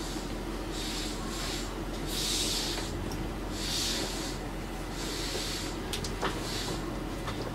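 Inside a Toei 5300 series subway car running between stations: a steady low rumble with a hiss that swells and fades every second or so, and a few sharp clicks near the end.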